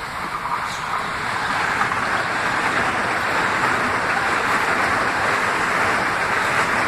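Metro-North M8 electric multiple-unit train passing at speed: a steady rush of steel wheels on the rails, building over the first two seconds and then holding loud.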